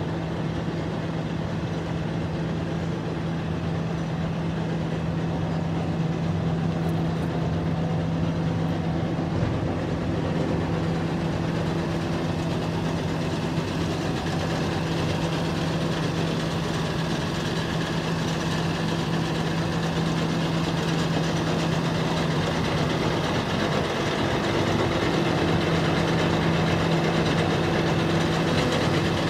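Concrete mixer truck's diesel engine running steadily, a low even drone with a steady hum.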